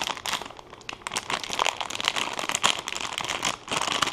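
Plastic packaging crinkling and crackling as a bagged PCIe power adapter cable is handled and unwrapped: a dense run of irregular crackles, louder in the second half.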